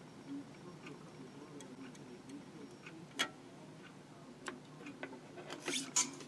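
Faint, irregular small clicks and taps from handling a soldering iron and a wire lead while a joint on a circuit board is soldered, with a louder cluster of clicks and rustle near the end as the iron and wire are lifted away.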